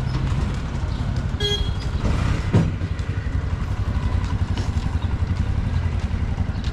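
A small vehicle engine running steadily close by, a low pulsing drone. A brief pitched tone comes about one and a half seconds in, and a short sharp sound with falling pitch comes about two and a half seconds in.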